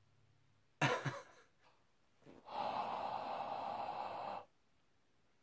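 A man breathing: a quick sharp intake of breath about a second in, then one long open-mouthed exhale of about two seconds, breathed onto a small stretchy toy to warm it.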